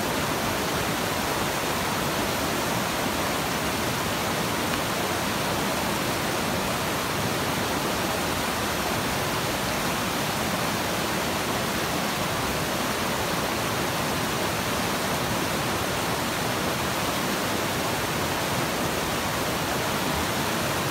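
River rapids rushing over and around boulders, a steady, unbroken sound of whitewater.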